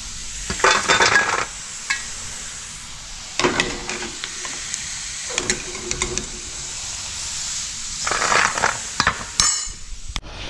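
Dried buffalo meat (sukuti) finished frying in hot oil in a steel wok, with a steady sizzle. A steel ladle scrapes and clinks against the wok and a steel plate about four times as the fried pieces are scooped out and tipped onto the plate.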